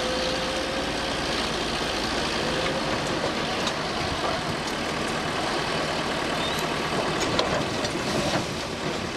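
Diesel engines of a crane and a backhoe loader running steadily while they lift and right an overturned bus, with a few faint knocks.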